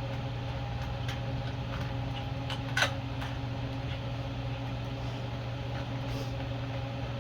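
A steady machine hum with a few fixed tones, like a running fan or motor, under a few light clicks and knocks of parts being handled, one a little louder about three seconds in.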